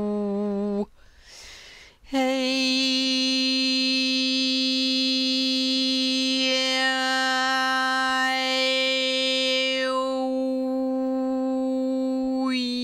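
A single voice holding a long tone rich in overtones. It breaks off about a second in for a breath, then holds a higher note steadily. Partway through, the vowel shifts and different overtones ring out, as in toning or overtone singing.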